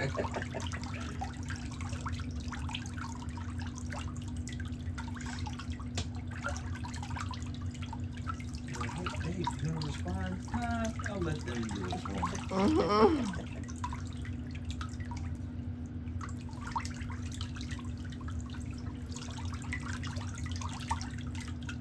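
Light dripping and small scattered clicks over a steady low hum, with a brief voice-like sound about 13 seconds in.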